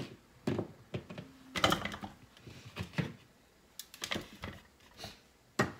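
Pieces of red bell pepper dropped by hand into a food processor's clear plastic bowl, a string of irregular light knocks.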